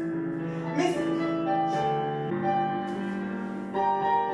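Piano playing a slow melody over held chords, a new note or chord about every second.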